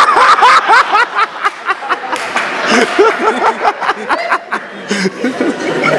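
Audience laughter: many people laughing and chuckling at once.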